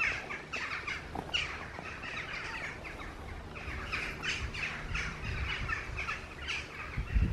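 Wild songbirds chirping, many short calls overlapping one another, over a low rumble.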